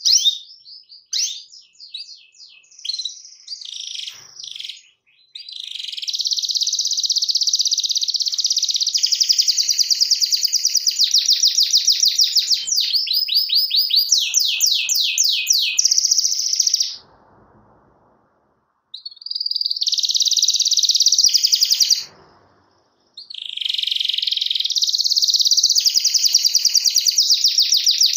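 Domestic canary singing: a few short chirps, then long, very fast rolling trills, broken twice by brief pauses.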